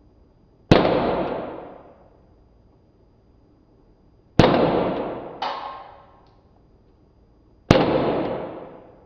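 Daisy Winchester Model 11 CO2 blowback BB pistol firing three shots about three and a half seconds apart. Each is a sharp crack with a long fading tail, and a smaller crack follows about a second after the second shot.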